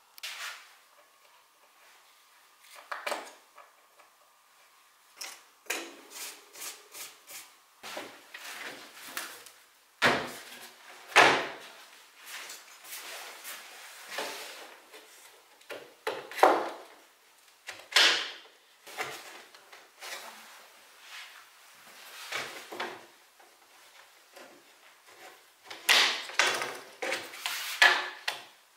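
Irregular wooden knocks, bumps and scrapes from handling parts of an old wooden wardrobe. There are loud knocks about ten seconds in and a cluster of them near the end.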